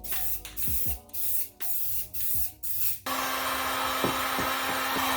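Aerosol spray-paint can sprayed in a series of short hissing bursts, then held down in one steady hiss with a low hum from about three seconds in.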